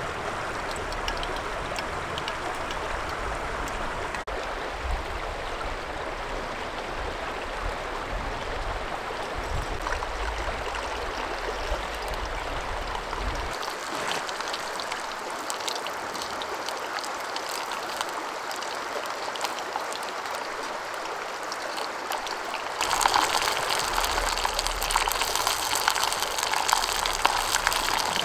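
Steady hiss of oil heating over a camping gas burner, then, about halfway through, dumplings sizzling and crackling as they deep-fry in a small metal mug. The sizzling turns much louder near the end.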